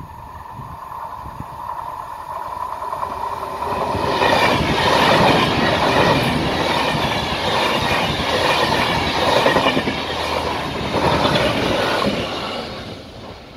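Enterprise push-pull passenger train going past at speed, with driving van trailer 9001 leading and 201 class diesel locomotive 227 pushing at the rear. The sound builds over the first four seconds, then the coaches' wheels pass loudly over the rails for about eight seconds, and it drops away quickly near the end.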